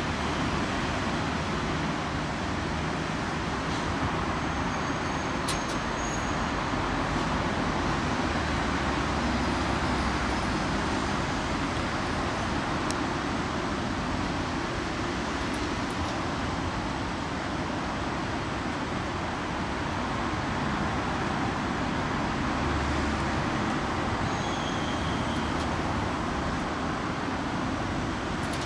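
Steady city road-traffic noise, an even wash of sound with no single vehicle standing out.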